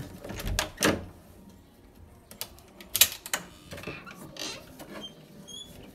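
A few sharp clicks and knocks, the strongest about a second in and around three seconds, with faint short high chirps near the end.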